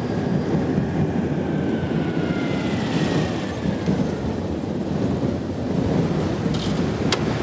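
Citroën 2CV's air-cooled flat-twin engine running as the car drives up and comes to a stop, over a steady low rumble of traffic. A sharp click near the end.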